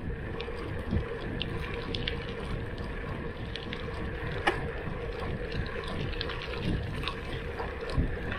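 Riding noise from a gravel bike on a dirt road: a steady rush of wind on the action camera's microphone mixed with tyres rolling over the surface, with scattered small clicks and rattles.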